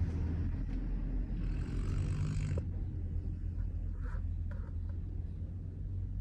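Deep snoring: a steady low rumble, with a breathy hiss of air from about one and a half to two and a half seconds in.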